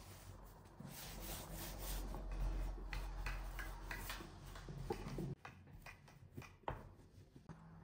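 Long wooden rolling pin rolling out dough on a floured cloth-covered table: a steady rubbing that stops about five seconds in, followed by a light knock.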